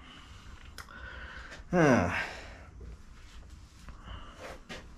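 A man gives one short sigh, its pitch falling, about two seconds in, with a few faint clicks around it.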